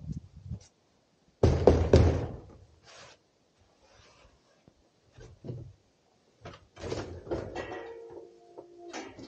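Knocks and handling noises: a loud thump about a second and a half in, then scattered knocks and clicks, and a short squeak near the end.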